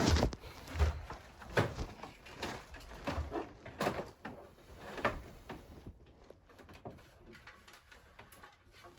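A run of dull knocks and thumps, roughly one every second for about five seconds, then only faint scattered ticks.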